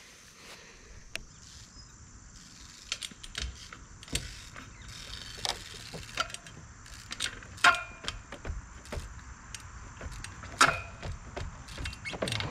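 Trials bike hopping and landing on wooden pallets: a run of sharp clicks, knocks and rattles from tyres, chain and frame, starting a few seconds in, with two loudest hits about midway and near the end.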